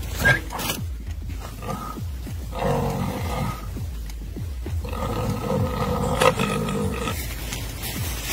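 Wild boar screaming in distress as a Komodo dragon bites it: two long, drawn-out cries, the first about a second long and the second about two seconds, over a low rumble. A sharp knock sounds during the second cry.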